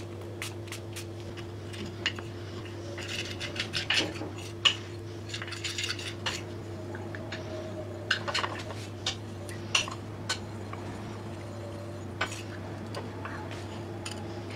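Metal spoon stirring a thin liquid mixture in a ceramic plate, scraping and clinking against the plate at irregular moments, over a steady low hum.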